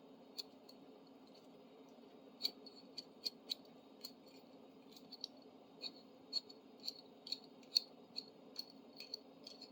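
Small sharp metal clicks, irregular at about two a second, from an old hand tool being worked back and forth as it is freed up, over a low steady hum.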